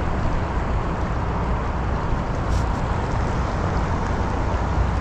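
Steady rush of fast-flowing river water, an even, unbroken noise with a heavy low rumble.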